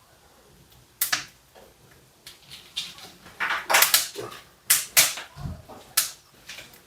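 A string of irregular sharp clacks and knocks, the first about a second in and most of them packed between about three and a half and six seconds in.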